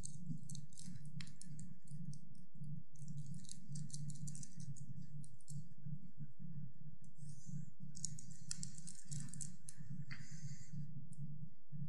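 Steady low hum of room tone, with clusters of faint, irregular clicks and ticks.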